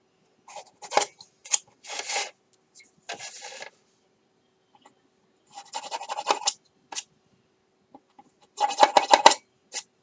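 Hand-twisted pin vise drill bit boring out porthole holes in a plastic model kit part. It makes short, irregular bursts of scratchy scraping with pauses between them, and the longest and loudest come near the end.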